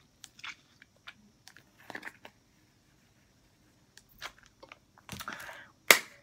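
Foil Capri Sun drink pouch crinkling as it is held and sucked at, mixed with small mouth and chewing sounds, in scattered short crackles. A sharp, louder click comes near the end.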